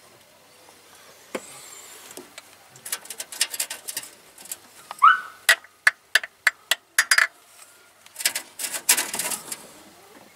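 Irregular sharp metallic clicks and rattles from parts being worked by hand inside the open crankcase of a Trabant 601 two-stroke twin, with a brief rising squeak about halfway through and a second burst of rattling near the end.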